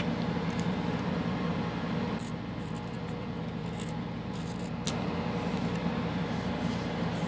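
A pen scratching on paper as it traces a circle around a bottle, over a steady low background hum, with a sharp click about five seconds in.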